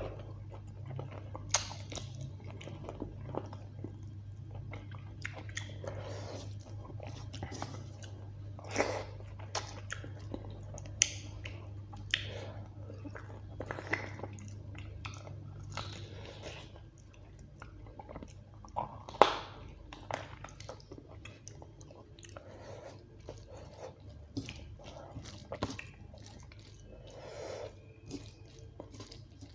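A person chewing and biting mouthfuls of rice and beef curry close to the microphone, with wet mouth clicks and occasional sharper crunches. A steady low hum underneath stops a little past halfway.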